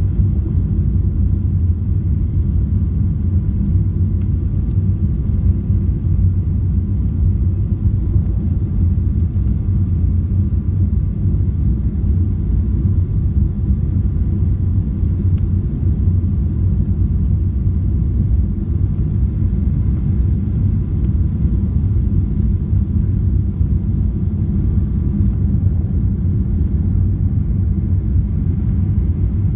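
Steady low rumble inside the cabin of a Boeing 777-300ER on approach, from its GE90 engines and the air rushing past the fuselage, heard at a window seat over the wing. A faint steady hum sits above the rumble.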